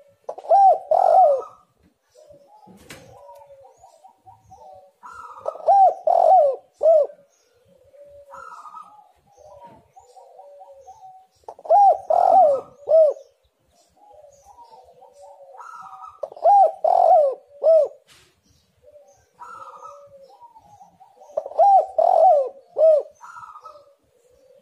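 Spotted dove cooing its song: five loud phrases of about three notes each, roughly every five seconds, with softer coos between them.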